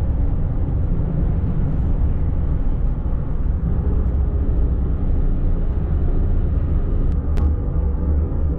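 Road and engine noise inside the cab of a moving Chevy pickup: a steady low rumble, with two short sharp clicks about seven seconds in.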